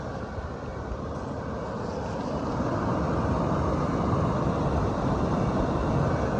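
Camper furnace running on its first test fire, a steady rushing blower-and-burner noise that grows louder about two to three seconds in.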